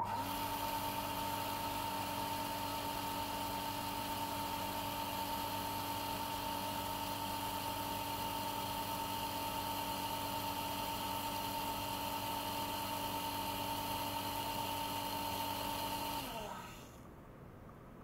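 Small liquid-circulation pump running with a steady whine and hum, stirring the tank water into fine bubbles. It is switched off about sixteen seconds in, its pitch falling as it winds down.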